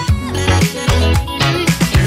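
Upbeat background music with a steady beat and a moving bass line.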